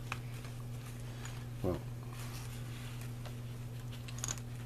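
A few faint clicks and handling sounds from a chain tool being worked out of a snug slot in a portable bike tool kit, over a steady low hum. One short pitched sound comes a little under two seconds in.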